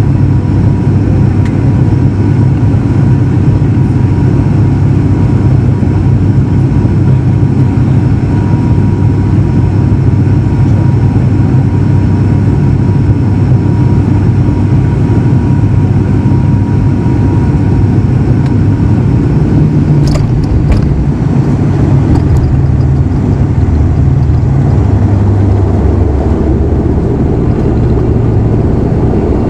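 ATR 72-500 turboprop engines and propellers droning steadily, heard through the cabin on final approach. About two-thirds of the way through comes a brief cluster of knocks as the wheels touch down, and a few seconds later the drone drops lower as the plane rolls out on the runway.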